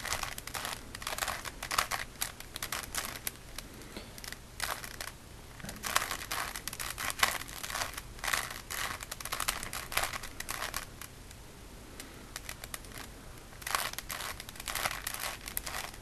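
Plastic Rubik's Cube layers being turned by hand in quick runs, clicking and rattling as each face snaps round, with a short lull about two-thirds of the way through. The turns are the repeated right and bottom turns of the sequence that twists the last corners into place.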